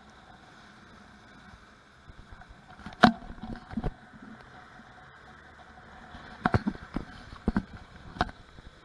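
Motorboat running over choppy water: the hull slaps the waves in a string of sharp knocks, the first about three seconds in and the loudest, over the steady noise of the Yamaha 115 outboard motor and the water.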